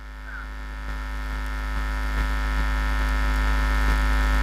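Steady electrical mains hum with a buzzing edge, growing slowly louder.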